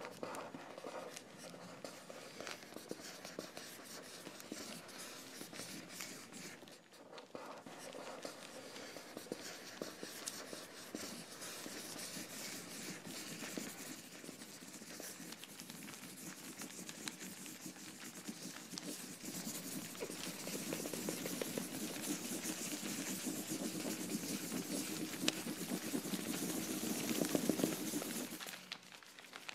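A pen scratching and scribbling on a paper notebook cover in quick, dense strokes. The strokes grow louder and busier in the last third, then stop shortly before the end.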